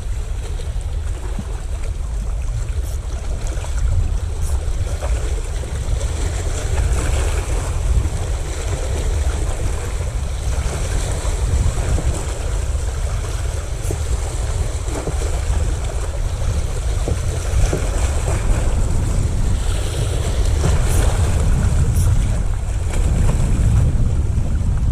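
Wind buffeting the microphone over the steady wash of sea waves, a continuous low rumble with a hiss on top.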